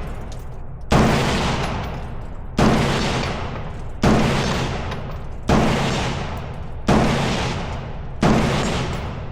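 Gun fired six single shots at an even pace, about one every second and a half, each followed by a long fading echo.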